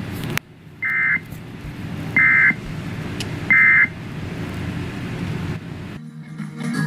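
Emergency Alert System End of Message: three short bursts of SAME digital data tones, about a second apart, signalling the end of the alert. A low steady hum runs underneath.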